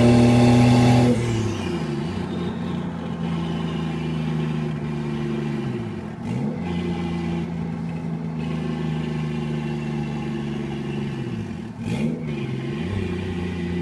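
Turbocharged 1JZ inline-six in a Toyota Cressida, loud and pulling for about the first second, then easing off to a steadier, quieter running note. The engine pitch dips briefly and climbs back about three times.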